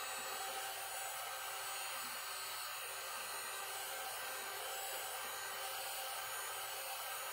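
Handheld electric heat gun running steadily: a constant rush of blown air with a faint steady whine, passed over wet resin to pop the surface bubbles.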